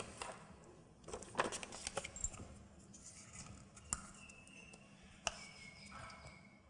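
Quiet handling noises as a strip of paper is pushed into a drinking glass of liquid and gripped with metal tongs. A few light clicks and taps of metal and glass come over soft paper rustle.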